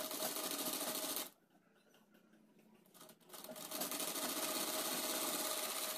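Sewing machine stitching through cotton fabric in two runs: a short run of just over a second, a pause, then a longer run of nearly three seconds that builds up to speed.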